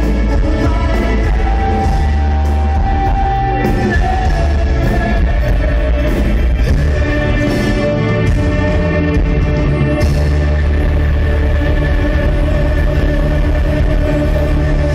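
Loud rock music with singing and a heavy bass.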